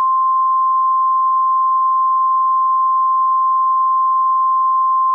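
Emergency alert attention tone: one steady, pure high-pitched tone held for about five seconds and cut off abruptly near the end.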